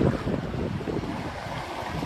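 Ocean surf washing onto a beach, a steady rushing hiss, with low rumbling gusts of wind on the microphone, strongest about the start.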